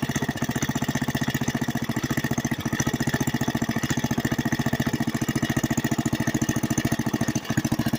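Moz-All lawn mower's gasoline engine running steadily at an even, rapid putter, purring, on its first run after three years of storage. A thin steady whine rides over it, and the running dips briefly near the end.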